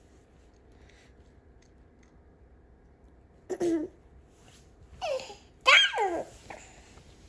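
A toddler's voice: three short high squeals and bursts of laughter with sliding pitch, one about three and a half seconds in and two close together around five to six seconds, the last the loudest.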